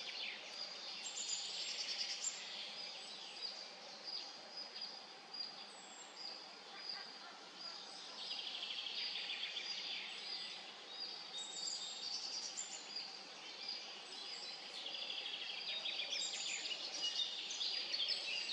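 Songbirds singing: phrases of rapid, trilling song come every several seconds, with fainter calls in between, over a steady background hiss.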